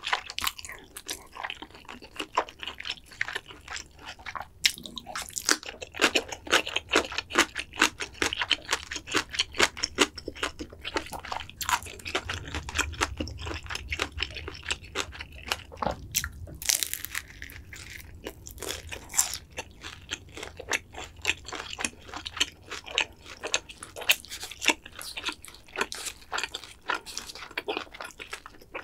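A person chewing with dense, rapid crunching and wet clicks throughout: crispy battered tangsuyuk (fried pork) and jajangmyeon noodles. There is a sharper crunch a little past halfway.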